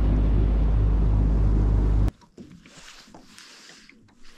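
Boat's outboard motor running at a steady speed, loud, then cutting off abruptly about two seconds in; after that only faint background sound remains.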